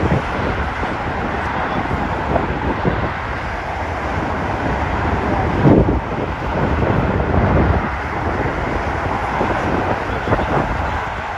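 Twin-engine jet airliner's engines running at takeoff thrust, a steady roar as it accelerates down the runway. Wind buffets the microphone in gusts, loudest about six seconds in.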